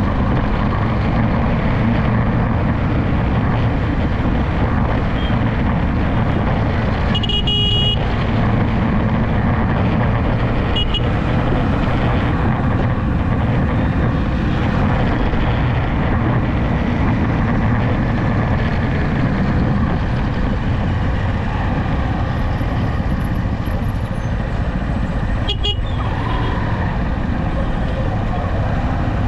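Steady road and wind noise with engine hum from a vehicle driving along a highway, broken by a few brief horn toots about a quarter of the way in, a little later, and again near the end.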